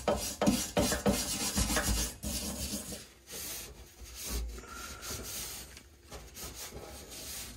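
A hand scraper rasping in quick repeated strokes across the grimy metal top of a diesel fuel tank, cleaning off old dirt and residue. About three seconds in it gives way to quieter rubbing as a rag wipes the tank down.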